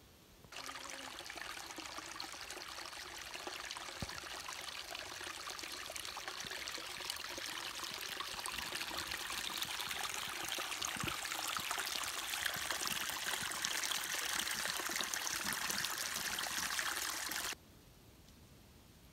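Small forest stream trickling and pouring into a hole in the ground, a steady splashing run of water that starts about half a second in and cuts off abruptly near the end.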